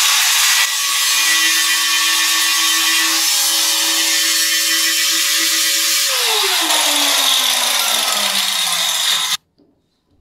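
Angle grinder grinding down the edge of a concealed mixer's metal extension piece, a loud steady grinding with a steady motor whine. About six seconds in the motor's pitch falls as it winds down while still grinding, and the sound stops abruptly near the end.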